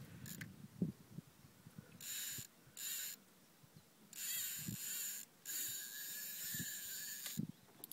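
Spinning reel's drag buzzing as a large hooked pike takes line: two short runs, then two longer ones of about one and two seconds.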